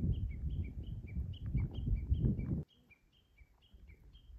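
A songbird repeating short chirping notes that alternate between a higher and a lower pitch, a few a second, over a low rumbling noise that cuts off suddenly about two-thirds through.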